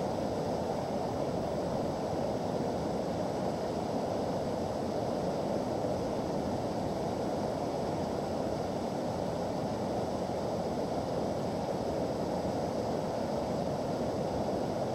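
Whitewater rushing steadily over a multi-tiered rock ledge waterfall on a creek.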